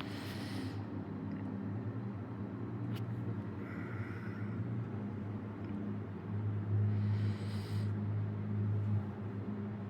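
Low, steady purring rumble from an elderly tabby cat being petted, swelling louder for a couple of seconds about two-thirds of the way through, with a brief soft hiss.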